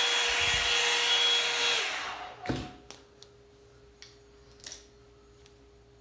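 Revlon 2-in-1 hot-air brush dryer running with a steady whine over its rushing air, then switched off and winding down about two seconds in. A single knock follows, then a few light clicks.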